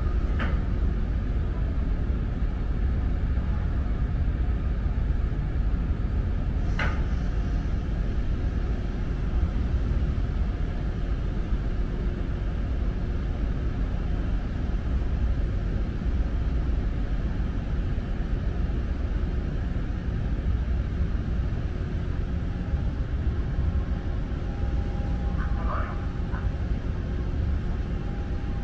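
Steady low rumble of the ferry Salvia Maru heard from its deck, with a brief sharp click right at the start and another about seven seconds in.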